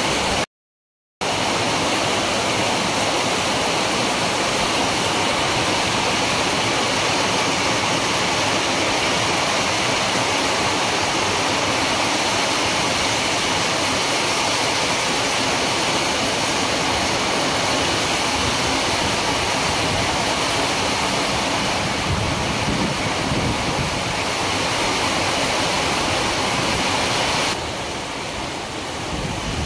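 Heavy rain pouring down steadily, a dense even hiss with no rhythm. The sound cuts out completely for a moment about half a second in, and it is a little quieter near the end.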